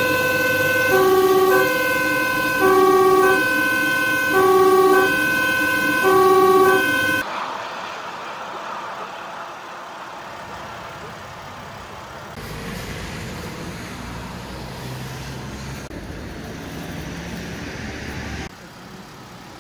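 Fire engine's two-tone siren, heard from inside the vehicle's cab, alternating between a high note and a low note, about four times each over the first seven seconds. It then stops abruptly, and a quieter, steady background rumble of traffic and engines follows.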